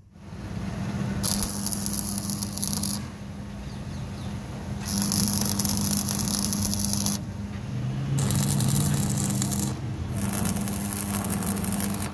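Stick arc welding on steel chain links: the electrode arc crackles and sizzles in four separate bursts of about one and a half to two seconds each, over a steady low hum.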